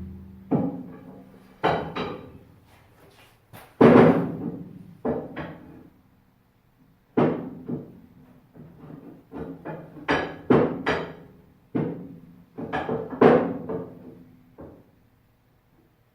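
Steel bar stock being knocked through the lifting holes of a cast-iron tool and cutter grinder: a string of irregular metallic clanks, each ringing briefly.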